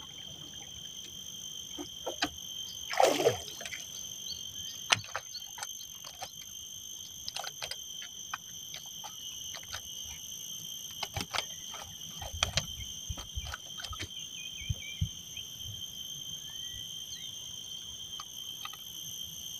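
Steady high-pitched chorus of calling frogs and insects, with scattered knocks from a small fish being handlined into a wooden canoe: a loud splash-like noise about three seconds in as it comes out of the water, and a run of low thumps on the hull around the middle.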